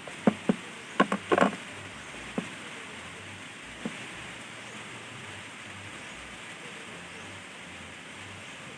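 A quick run of sharp clicks and knocks, about seven in the first second and a half, then single knocks at about two and a half and four seconds in, over a steady hiss.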